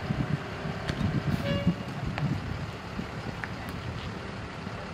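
A brief vehicle horn toot about a second and a half in, over steady street noise and low voices.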